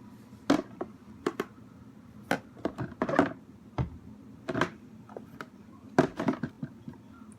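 Irregular clicks, taps and knocks of small objects being handled and set down on a hard surface, a dozen or so spread unevenly over several seconds.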